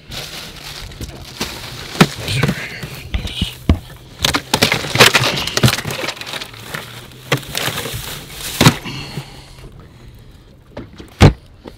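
Plastic bags rustling and crinkling, with several sharp knocks and thumps against a hard plastic cooler as hands dig through it.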